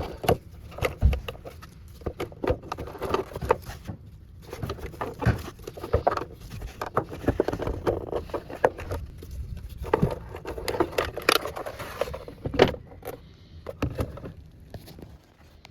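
Irregular clicks, knocks and scrapes of the plastic air filter housing and its catches being handled and moved about in the engine bay.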